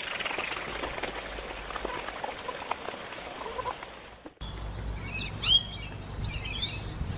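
Hens pecking at sprouted wheat in a plastic tray, with faint scattered clicks over outdoor background noise. About four seconds in, this cuts off suddenly, followed by birds chirping in several quick bursts.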